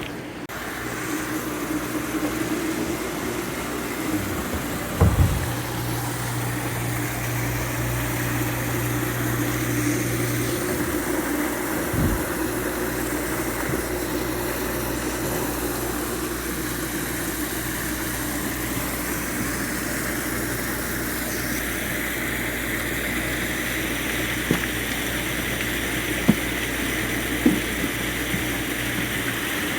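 Pond pump running with a steady electric hum while water flows through the waterfall, with a few dull knocks.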